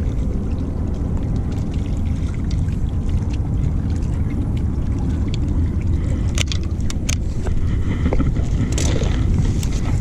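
Wind buffeting the microphone as a steady low rumble. Scattered sharp clicks and rattles of fishing gear being handled come about six to seven seconds in and again near the end.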